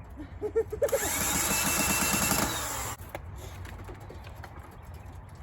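Power drill driving a screw: a few short blips on the trigger, then a run of about two seconds that stops abruptly.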